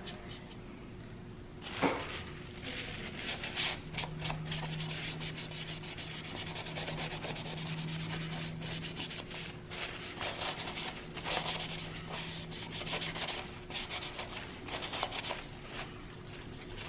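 Paper towel rubbing and wiping over the painted plastic of a 3D-printed helmet piece in a run of irregular scuffing strokes, wiping back a heavy dark weathering wash. There is a single knock about two seconds in.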